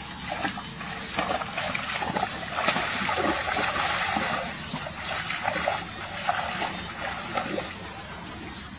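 Water splashing and sloshing as a person wades through a shallow muddy pond, legs churning the water in many short splashes, busiest from about two to four seconds in.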